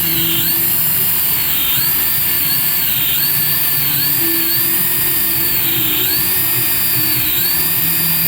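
Small electric motor of a remote-control toy whining over a steady hiss, its pitch stepping up and dropping back again and again as the throttle is worked.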